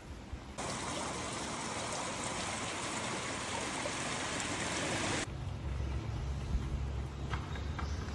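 Steady hiss of water, such as a stream or heavy rain, that starts abruptly about half a second in and cuts off about five seconds in. It is followed by a low rumble with a few light clicks.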